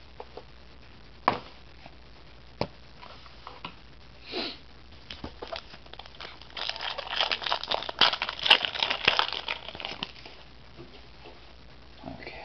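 Topps trading card pack wrapper being crinkled and torn open: a few light clicks and taps of handling, then a dense crackle of the wrapper from about six to ten seconds in.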